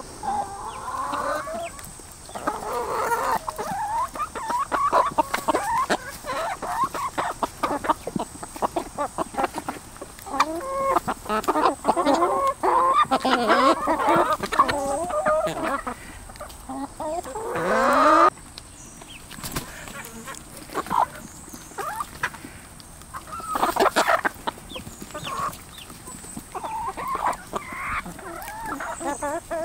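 A flock of backyard chickens clucking and calling continuously as they crowd in to be hand-fed. A louder rising call stands out about eighteen seconds in, and another at about twenty-four seconds.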